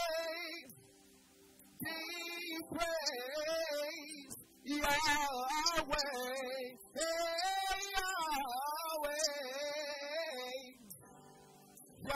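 A man singing a gospel worship song solo into a microphone, long sung phrases with sliding, held notes and short breaths between them.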